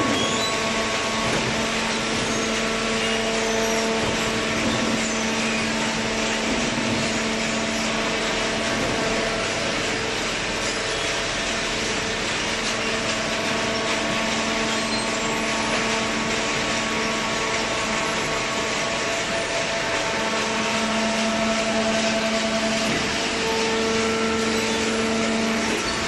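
Horizontal hydraulic cardboard baler and its feed conveyor running: a steady machine hum over constant noise, the hum swelling slightly now and then.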